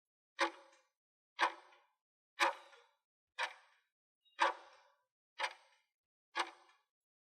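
Countdown-timer sound effect ticking like a clock: sharp, even ticks exactly once a second, marking off the time allowed to answer a question.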